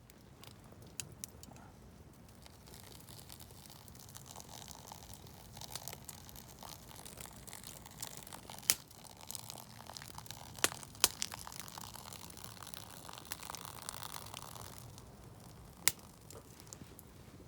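Faint handling noise, broken by several sharp clicks; the loudest click comes a little past halfway through.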